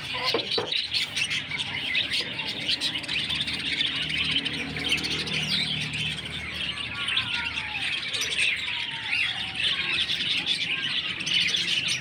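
Many caged budgerigars chattering at once: a dense, continuous twittering of short chirps and calls.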